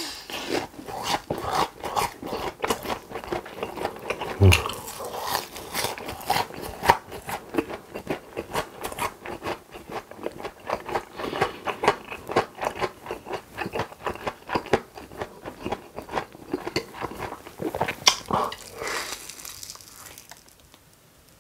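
Close-miked biting, crunching and chewing of crispy breaded cheese-stuffed pork cutlet: a dense run of crackling crunches with a few louder bites, trailing off near the end.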